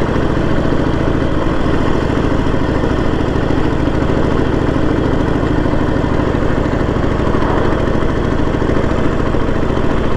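Harley-Davidson Sportster 1200's V-twin engine running steadily under throttle, pulling the motorcycle up a hill.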